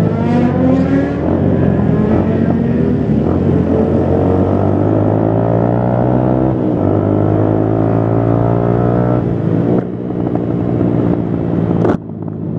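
Motorcycle engine running at low road speed, its pitch climbing slowly for several seconds and then dropping sharply about ten seconds in.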